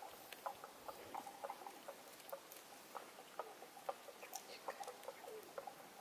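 Pigeon pecking at grain on sand: quick, irregular beak taps and clicks, a few a second.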